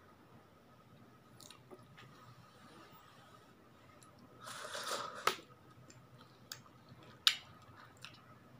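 Eating champorado, a chocolate rice porridge, with a metal spoon from a ceramic mug. There is a noisy mouthful about halfway through, followed by a few sharp clicks of the spoon against the mug.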